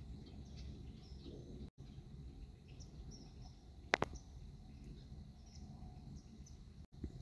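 Outdoor field ambience: a steady low rumble with faint, scattered bird chirps, and one sharp click about four seconds in. The sound cuts out completely twice for an instant, where the recorded clips are joined.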